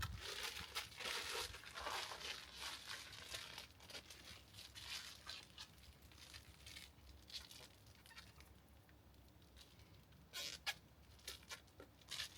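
Plastic shrink bags crinkling and rustling as whole chickens are handled and bagged, busiest in the first few seconds and quieter after, with a few sharp clicks near the end.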